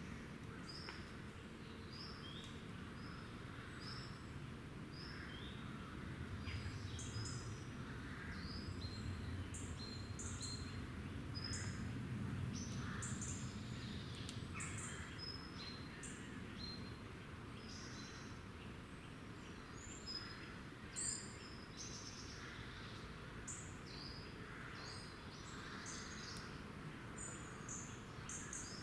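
Small woodland songbirds calling: many short, high chirps coming one after another, over a low, steady background rumble that grows louder in the middle.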